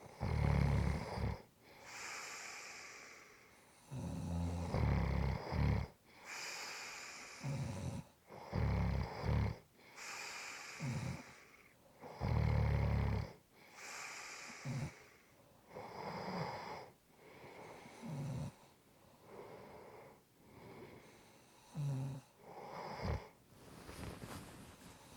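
A person snoring in a slow, regular rhythm: a deep, low snore on each in-breath, alternating with a breathy exhale every few seconds. The snores grow shorter and weaker in the last few seconds.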